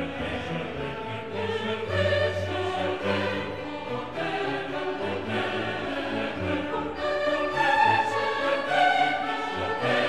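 Background music with a choir singing held notes.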